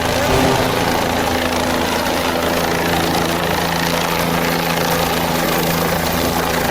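Helicopter turbine engine and rotor running at a steady, unchanging pitch.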